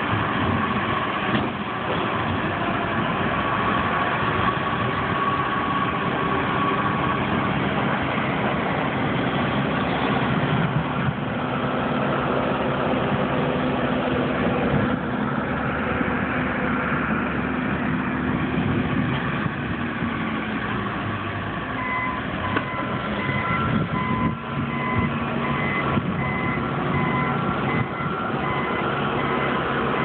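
Diesel engines of a wheel loader and a backhoe loader running as they clear snow, with a reversing alarm beeping steadily about once a second from about two-thirds of the way through.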